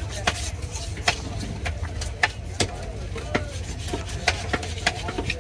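Knife blade scraping the scales off a large tripletail fish, giving irregular sharp scratchy clicks as the scales snap loose, over a steady low background hum.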